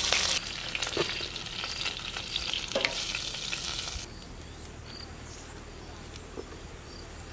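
Hot grilled chicken drumsticks sizzling and crackling, with a couple of sharp clicks. The sizzle cuts off suddenly about four seconds in, leaving a faint background with a few chirps.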